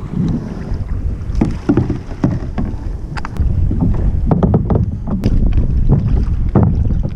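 Knocks, bumps and scrapes on the plastic hull of a sit-on-top kayak as someone handles the paddle and climbs aboard in shallow water, picked up by a camera fixed to the hull, with wind rumbling on the microphone.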